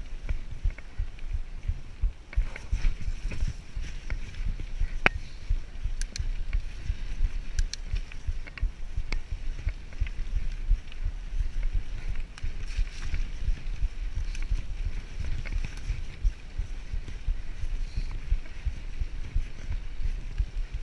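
Mountain bike riding down a dirt forest trail: a steady, uneven low rumble of tyres on the ground and wind buffeting the microphone, with scattered sharp clicks and knocks from the bike rattling over the rough track, the loudest about five seconds in.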